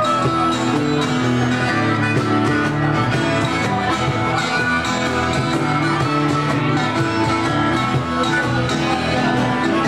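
Live band playing a blues-rock tune: strummed acoustic guitars and electric bass, with a harmonica played through a vocal microphone.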